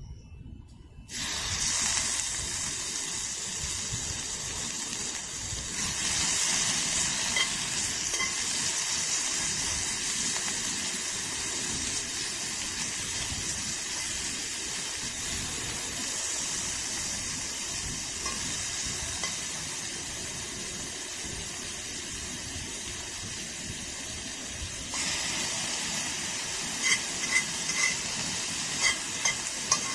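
Food sizzling as it fries in a pan, starting suddenly about a second in. The sizzle is a steady hiss that grows louder near the end, with sharp pops and spatters.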